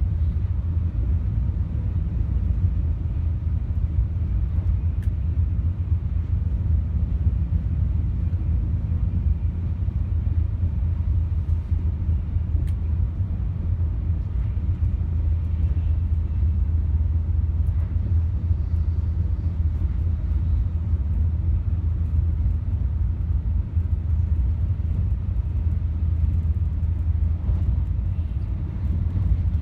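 Cabin noise inside a JR West Sanyo Shinkansen N700A travelling at speed: a steady low rumble from the train running on the track.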